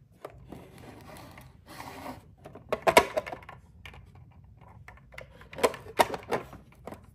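Bambu Lab 3D printer at work: a low steady hum with irregular sharp clicks and knocks, loudest about three seconds in and again around six seconds in.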